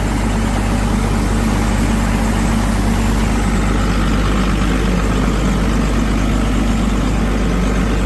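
Diesel engine of a wheeled asphalt paver idling steadily, freshly started after sitting and left to run for a while.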